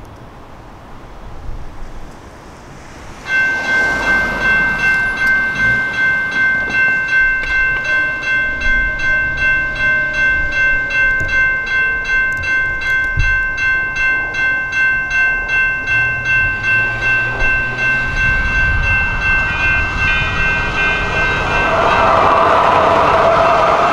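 Railroad crossing warning bell starts about three seconds in and rings as a steady ringing tone that pulses about twice a second. Near the end a louder, lower sound joins it.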